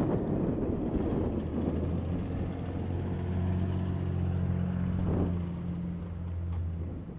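A motor vehicle's engine running with a steady low hum, after about a second of rushing noise.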